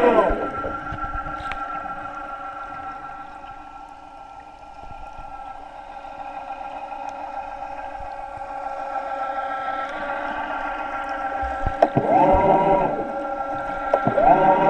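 Background music: a long sustained chord that fades down and swells back up, with held sung notes coming in about twelve seconds in and again near the end.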